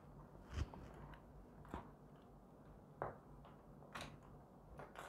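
Faint clicks and light taps from handling the plastic air purifier, about five spread roughly a second apart, over a low steady hum.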